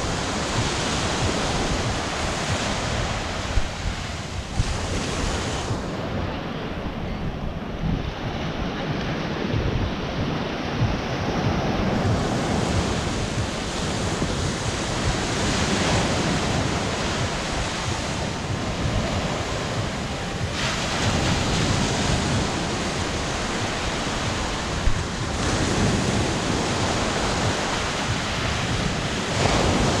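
Ocean surf breaking and washing up the sand in a steady hiss and rush, with wind buffeting the microphone in a low rumble.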